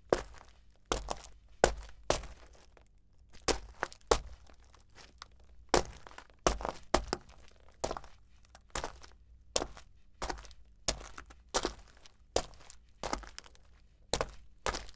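Footsteps walking on stone: a steady series of sharp, gritty steps at a walking pace, with a short pause about three seconds in.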